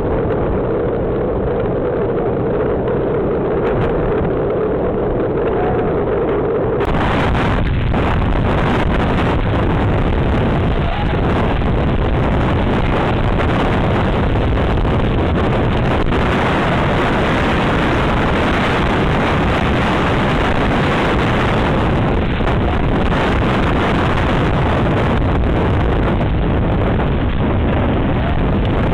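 Strong storm wind and rain making a loud, steady rushing noise on a security camera's microphone. In the first few seconds a steady hum sits under it, and about seven seconds in it cuts to a fuller, harsher rush from another camera.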